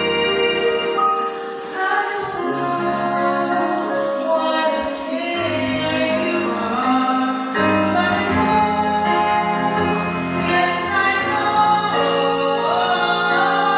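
Two women singing a Christian song as a duet into microphones, over a musical accompaniment with sustained low notes.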